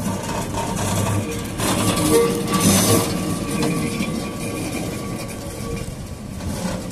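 A vintage-style Lisbon tram passing close by on street rails. Its running noise is loudest about two to three seconds in, then fades as it pulls away.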